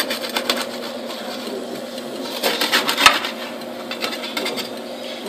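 Metal spatula scraping and clicking against the perforated pan of a Presto Pizzazz pizza oven, heaviest about two and a half to three seconds in, over the steady hum of the oven's turntable motor.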